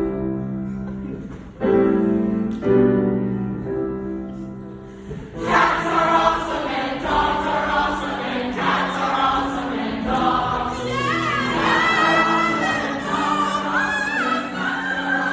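Piano chords, struck a few times and held. About five and a half seconds in, a group of voices starts singing along with them.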